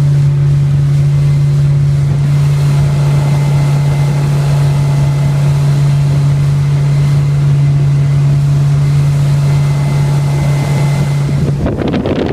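Fishing boat's engine running at a steady low drone under way. Just before the end the engine note cuts out and wind buffets the microphone.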